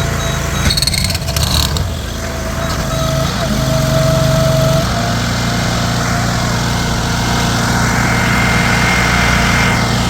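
Engine of street-construction equipment running steadily, with some clattering in the first two seconds; its note steps up slightly about halfway through.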